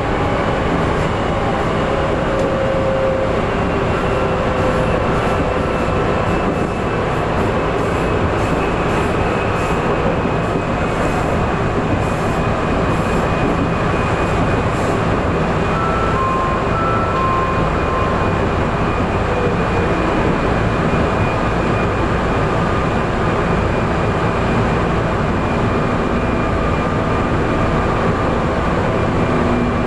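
Tokyu 8500 series electric train running, a loud, steady roar of traction motors and wheels on rail with faint whining tones over it.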